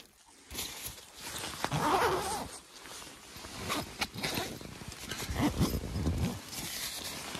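A nylon sleeping bag rustling while its zipper is worked by hand, with louder bursts of rustling about two seconds in and again near the end.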